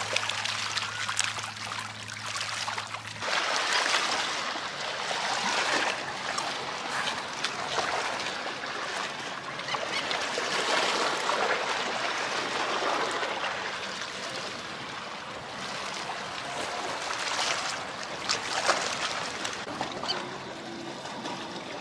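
Small waves lapping and trickling over shoreline stones, the wash rising and falling in surges.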